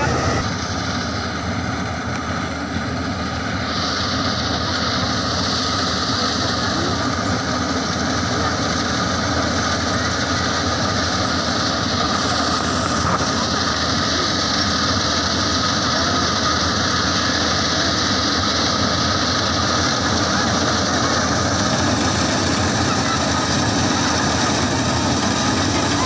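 Combine harvester running steadily under load as it cuts and threshes standing rice, a constant dense mix of diesel engine and threshing machinery.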